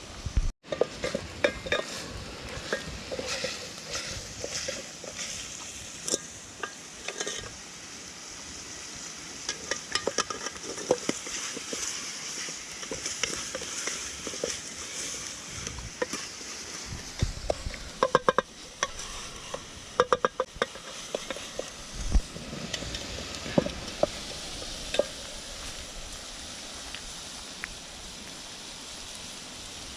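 Meat frying with a steady sizzle in a pot while a spoon stirs it, scraping and clinking against the pot's sides, with a quick run of sharper knocks a little past halfway.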